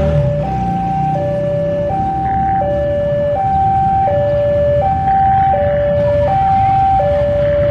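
Level-crossing warning alarm sounding a steady high–low two-tone pattern, each tone held under a second. Beneath it, the low rumble of an approaching CC 201 diesel-electric locomotive hauling a passenger train.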